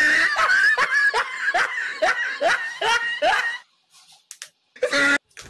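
Laughter: a rapid run of rising, pitched laugh pulses, about two to three a second, that stops short a little over halfway through. A brief voiced sound comes near the end.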